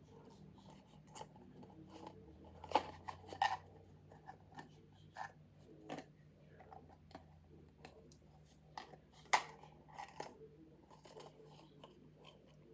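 Irregular sharp clicks and small rustles from handling a roll of washi tape and small craft supplies on a desk.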